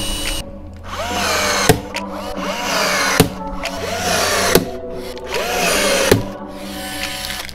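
Power drill run in about four short bursts after a first spin stops about half a second in. Its whine rises and falls with the trigger, and each burst ends in a sharp knock.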